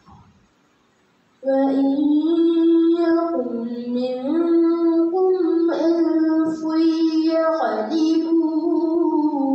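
A girl's voice reciting the Quran in tarannum, chanting Arabic in long, held, ornamented notes that step up and down in pitch. It comes in after a short pause, about a second and a half in, and carries on unbroken.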